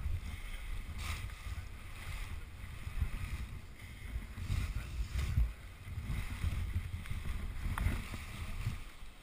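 Nylon paraglider wing rustling and crackling in short bursts as it is bundled up and carried in the arms. Under it runs a steady low rumble of handling and wind on the body-worn camera's microphone.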